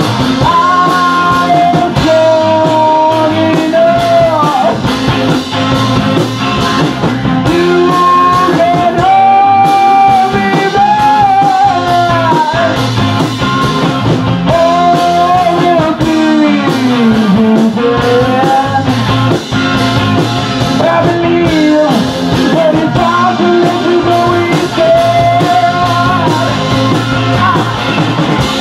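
Rock band playing live: drum kit, electric guitar and red electric bass together, with a melody line gliding over a steady drum beat.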